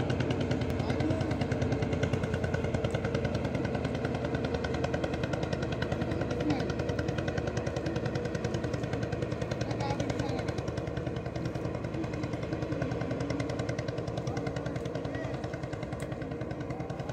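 Wooden river boat's engine running with a fast, even putter, slowly fading as the boat moves away.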